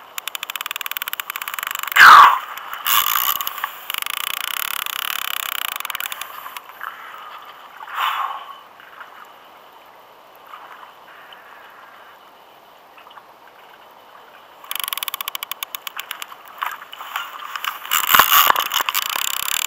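Overhead fishing reel clicking in rapid runs while a heavy fish is fought on the line, with a loud squeal falling in pitch about two seconds in and a quieter spell in the middle.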